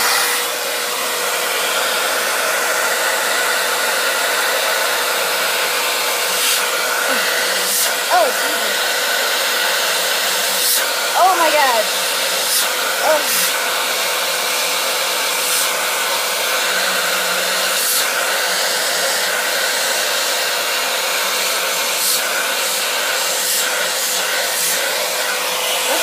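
Vacuum cleaner running steadily with a constant hum, its hose nozzle held against a bare scalp to suck up loose hair. A few brief sliding squeaks come through about a third of the way in and again around halfway.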